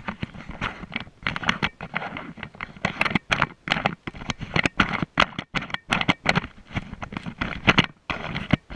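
Knife slicing and scraping through a black bear's hide while the carcass is opened for gutting, with the fur rustling under the hands. A run of irregular scrapes and crackles with short pauses between strokes.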